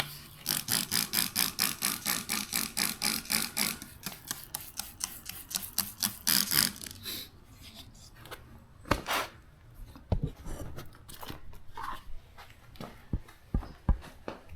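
Hand trigger spray bottle of soapy water squirted rapidly, about six quick sprays a second for three and a half seconds, then one longer spray, followed by scattered clicks and handling knocks.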